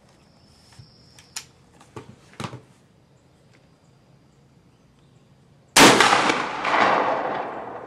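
A 20-gauge H&R single-shot slug gun fires once, about six seconds in: a sharp blast whose echo fades over about three seconds. Before it come a few light clicks.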